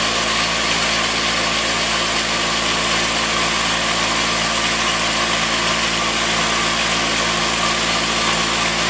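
Juki DDL-8700 industrial lockstitch sewing machine running at a steady speed to wind a bobbin: an even motor hum with a whirring hiss from the belt, handwheel and bobbin winder.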